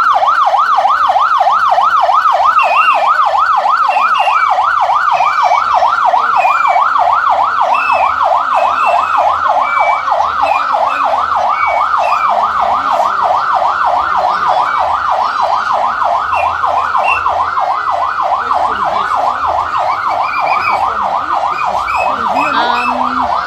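Police pickup truck's siren in rapid yelp mode: a fast, steady warble of about four rising-and-falling sweeps a second, easing slightly as the truck moves away.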